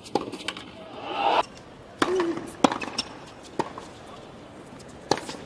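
Tennis rally: racket strings hitting the ball in sharp pops, several strikes a second or so apart, over a background of arena hum.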